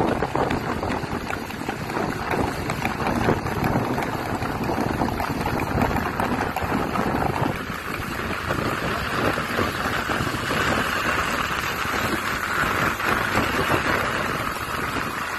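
Rain and wind noise from a moving vehicle in a downpour: a steady rushing hiss with rough buffeting on the microphone, getting brighter about ten seconds in.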